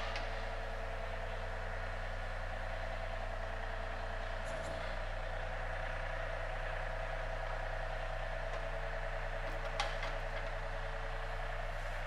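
John Deere 3E series compact tractor's diesel engine idling steadily, with one sharp click about ten seconds in.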